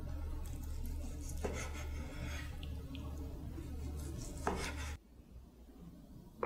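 Chef's knife slicing through boiled pork belly on a wooden cutting board: rasping strokes of the blade through the meat, with the knife striking the board twice, about a second and a half in and again near four and a half seconds, over a low hum. The sound drops off abruptly at about five seconds.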